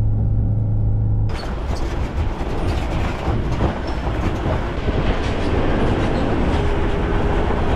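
Tow vehicle's engine droning steadily, heard from inside the cabin; a little over a second in, the sound switches to outside the vehicle: tyres rolling over a rocky gravel track, a loud, rattly rumble.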